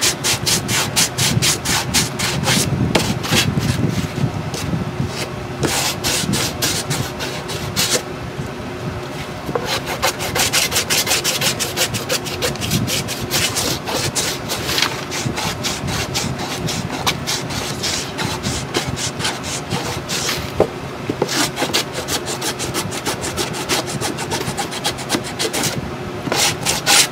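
Sanding block rubbed in quick back-and-forth strokes over the painted side of a cardboard chipboard box, knocking back a coat of antiquing cream; the strokes stop briefly a couple of times.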